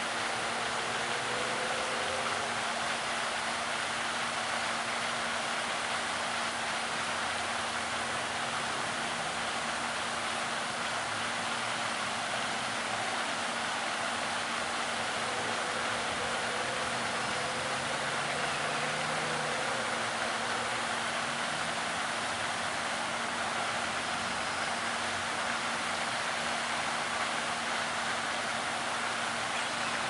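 Steady outdoor background noise: an even hiss with a faint low steady hum, unchanging, with no distinct calls or knocks.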